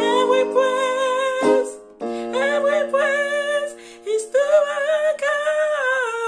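A woman singing a gospel praise line, in three phrases, over held keyboard chords.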